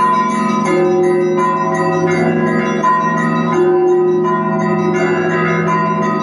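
Russian Orthodox monastery bells rung together: many bells of different pitches struck over and over in a dense, unbroken peal.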